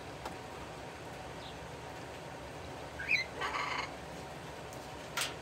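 A bird gives a short rising two-note chirp about three seconds in, followed straight away by a rougher, buzzy call, over a steady background hiss. A single sharp click comes near the end.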